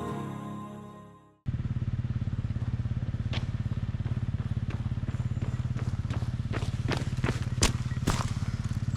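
Background music fading out, then, after a moment of silence, a motorcycle engine idling with a fast, even pulse, with several sharp clicks over it in the second half.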